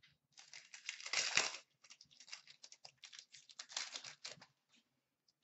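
Upper Deck SP Authentic hockey trading cards being handled and flicked through, a quick run of light papery clicks and rustles for about four seconds, loudest about a second in.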